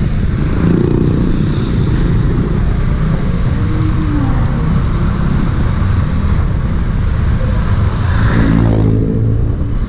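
Yamaha Aerox 155 scooter's single-cylinder engine running at low speed in traffic, its note rising and falling slightly with the throttle, under a steady heavy rumble.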